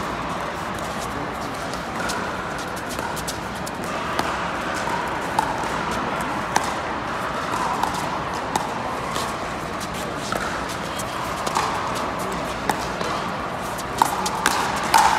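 Pickleball paddles striking the hard plastic ball back and forth in a rally, sharp pops every second or so, with a quicker flurry near the end. A steady murmur of the crowd and hall lies underneath.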